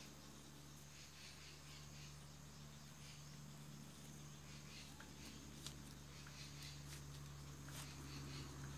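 Faint rustling of soil and leaves, with a few soft clicks, as termite mushrooms are pulled from the ground by hand and laid on a pile. Under it runs a steady high insect drone.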